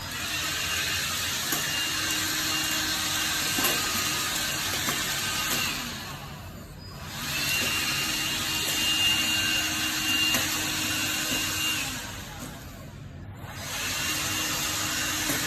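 Black & Decker 14.4 V cordless handheld vacuum cleaner running with its brush nozzle fitted: a steady motor whine with a high tone, in three stretches of about six, five and two seconds that drop away in between.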